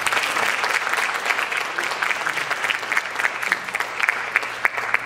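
Audience applauding, with the clapping thinning out near the end.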